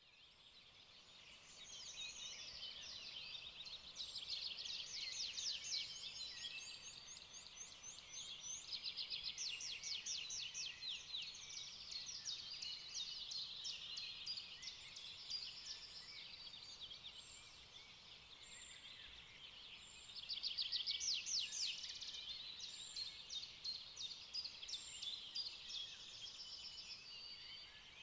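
Several birds chirping and singing together, with quick trills and short high calls overlapping, over a faint steady hiss; the birdsong fades in over the first couple of seconds.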